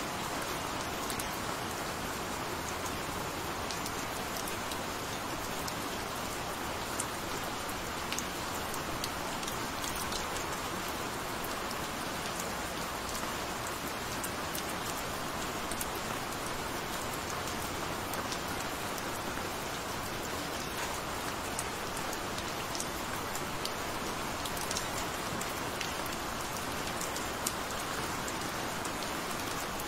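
Steady rain: a continuous hiss with scattered sharp taps of individual drops.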